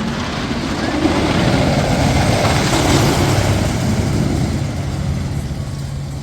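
Wooden roller coaster train running on its track: a loud, steady rattle and rumble over a low hum, swelling about a second in and easing toward the end.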